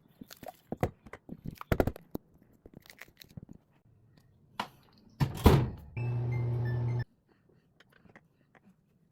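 Plastic food container handled with small clicks and taps, then a loud thunk like a microwave door shutting. A microwave oven then hums steadily for about a second before cutting off abruptly.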